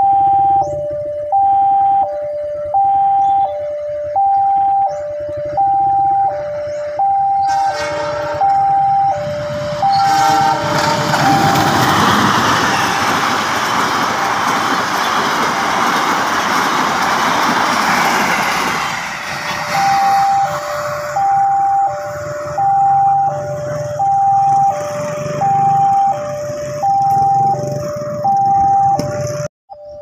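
Level-crossing warning alarm sounding a steady two-tone ding-dong, high then low, about once a second. From about eight seconds in, a passenger train passes through the crossing with a loud rumble of wheels on rails that drowns out the alarm for some ten seconds. The alarm is heard again as the train clears.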